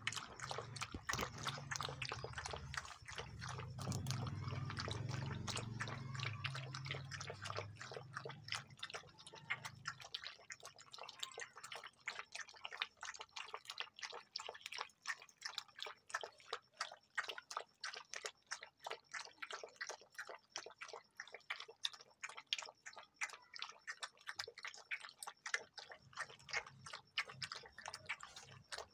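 German shepherd puppies lapping milk from a metal bowl: quick wet laps and clicks, about three or four a second. A low hum sits under the first ten seconds or so, then stops.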